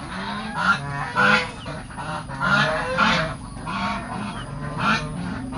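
Domestic geese honking, a run of short calls repeating every half second or so, several overlapping.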